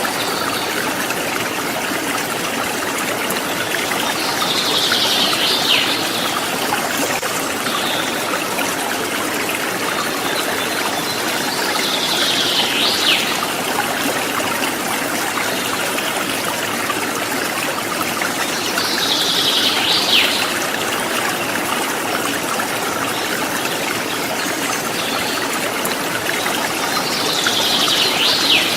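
Rocky river water flowing steadily over stones. Four times, about every seven seconds, a high call of about a second and a half sounds above the water, each ending in a quick falling note.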